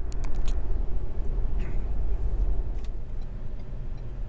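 Steady low rumble of a vehicle's engine and tyres on pavement, heard from inside the cabin while cruising along a highway. A few light clicks come right at the start.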